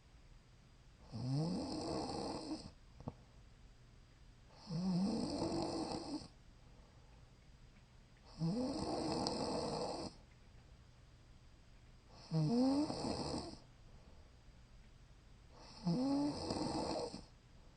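A woman snoring in her sleep: five loud snores in a steady rhythm, about one every three and a half seconds, each about a second and a half long and rising in pitch at its start, with quiet between them.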